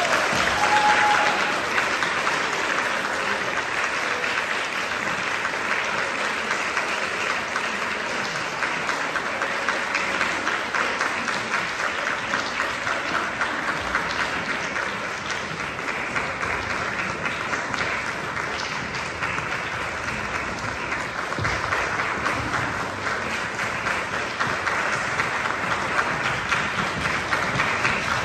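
Audience applauding steadily: a dense, even wash of clapping.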